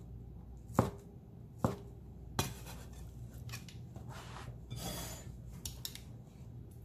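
A cleaver chopping through boneless chicken onto a wooden cutting board: three sharp knocks less than a second apart. About five seconds in, the flat of the blade scrapes across the board as it slides under the cut pieces to scoop them up.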